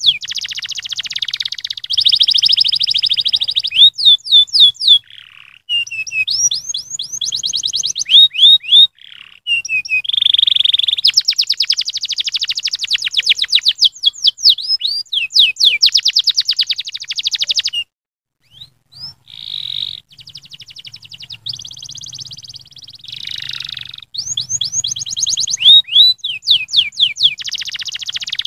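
Domestic canary singing: fast rolling trills alternating with runs of quick rising chirps, with a short break about two-thirds of the way through.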